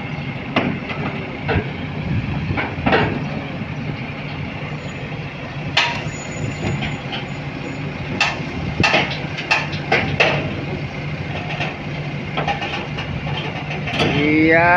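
Diesel engine of a SANY SCC550A crawler crane running steadily as the crane crawls up onto a lowboy trailer, with repeated clanks and knocks from its steel tracks. Near the end a loud tone starts, rising and then holding.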